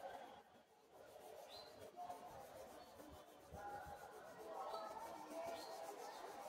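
Faint scratching of a coloured pencil on paper in quick back-and-forth shading strokes. Faint voices sound in the background, stronger in the second half.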